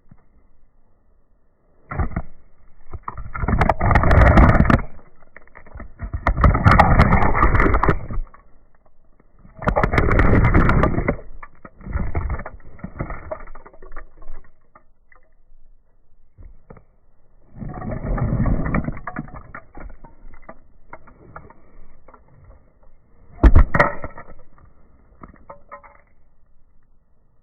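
Safety-boot sole grinding and twisting a small toy car against asphalt in several long scraping strokes, with clicks of breaking plastic and metal pieces, and one sharp stomp near the end.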